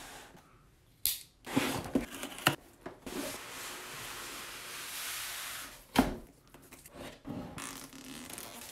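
Cardboard box and foam packing handled during an unboxing: a few sharp clatters and rustles, with a longer even rustling stretch in the middle. Clear plastic film is peeled off the inner box near the end.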